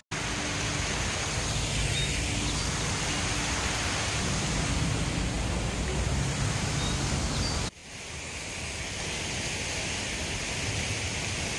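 Steady rushing splash of water running down an outdoor fountain. It breaks off for an instant about two-thirds of the way through and comes back slightly softer.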